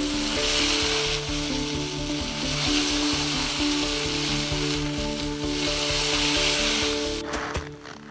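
Sizzling, crackling hiss that swells three times, over background music with a steady melody.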